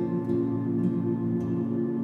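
Background music: a slow, soft instrumental of sustained ringing tones with gentle note onsets about every half second.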